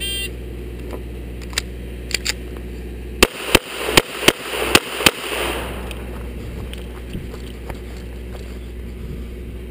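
Shot timer's start beep, then about three seconds later six pistol shots in quick succession, a bit under half a second apart, each followed by a short echo.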